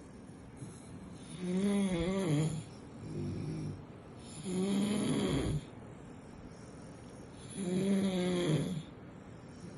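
Puppy snoring: three pitched snores, each about a second long and roughly three seconds apart, with a fainter breath sound between the first two.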